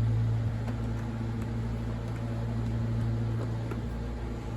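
Steady low hum of a running fan or similar motor-driven appliance, with a few faint light clicks and taps as parts of the chainsaw are handled.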